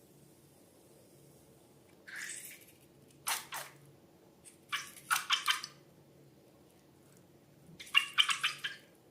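Wet squishing and splattering as liquid slime ingredients are squeezed out of balloons, in four short bursts of quick squelches, the last two the loudest.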